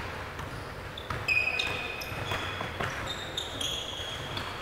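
Sneakers squeaking in short high-pitched chirps on a gym floor, with several sharp thuds of balls bouncing or hitting, mostly from about a second in.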